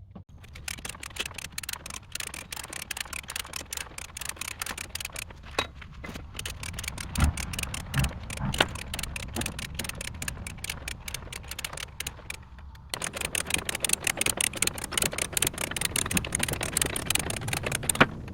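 The heavy carriage of a Corley sawmill being rolled by hand along its tracks: a fast run of clicks and rattles, with a few dull knocks in the middle and a short break about two-thirds of the way through before the clicking starts again.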